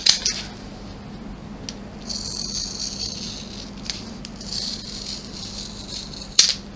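Scissors cutting through the stitched edge of a vinyl-and-fabric ID wallet: a few sharp snips of the blades closing and two longer, hissy slicing strokes, over a faint steady hum.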